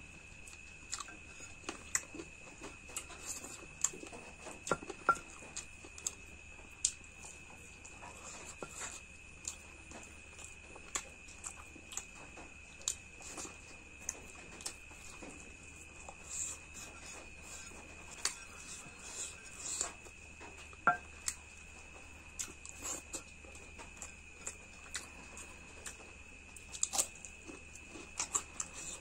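Close-up eating sounds: irregular wet smacks, clicks and chewing of someone eating mutton curry, a few of the smacks sharper and louder than the rest.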